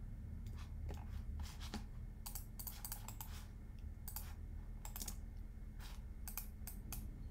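Computer keyboard keystrokes and mouse clicks, irregular and scattered, over a low steady hum.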